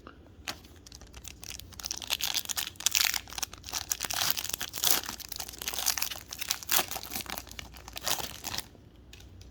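Plastic wrapper of a 2021 Topps Finest WWE trading card pack being torn open and crinkled in the hands: a dense crackling that starts about a second and a half in and stops shortly before the end.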